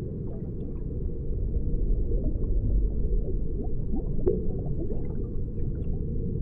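Aquarium water bubbling: a dense, steady stream of small bubbles gurgling, muffled and low, with scattered brief higher blips.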